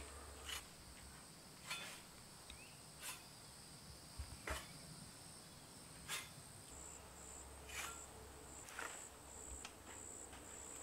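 Faint insect chirping, crickets' steady high trill, breaking into short regular pulses about halfway through, with scattered faint clicks now and then.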